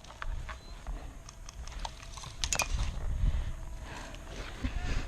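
Footsteps and rustling through dry leaf litter, with scattered small crackles and a quick cluster of sharp clicks about two and a half seconds in.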